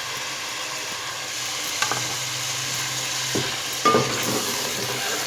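Chicken frying in oil with onions and spice paste in a pan, sizzling steadily while a spoon stirs it, knocking against the pan a few times.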